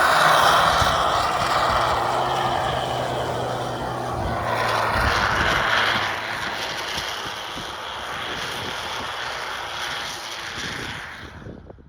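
Mitsubishi L200 pickup engine running, a steady drone under a loud rushing noise. The noise eases about halfway through and cuts off abruptly just before the end.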